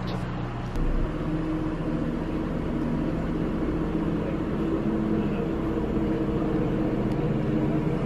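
Idling vehicle engines making a steady low drone, a few slightly wavering engine notes layered together, with a step up in level about a second in.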